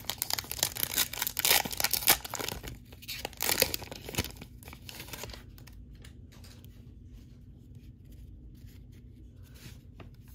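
Foil trading-card pack (Panini Mosaic basketball) torn open and crinkled by hand, a dense crackling rip for about the first five seconds. It then goes much quieter, with only a few light clicks as the cards are handled.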